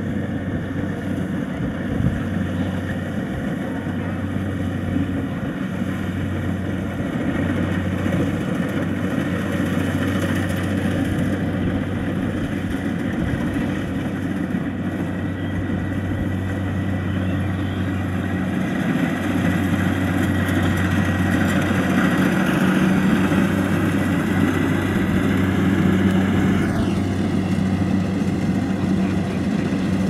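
Kubota DC-70 rice combine harvester working a field: its diesel engine and threshing machinery run with a steady hum. The hum grows a little louder in the second half as the machine comes closer.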